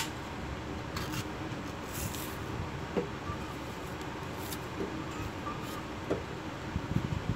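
Steady low background hum with a few soft clicks and a brief gritty scrape about two seconds in, as split saba banana pieces are handled and pressed into brown sugar on a ceramic plate.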